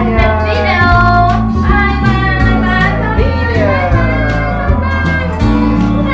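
Background song with a child-like singing voice over a steady bass beat.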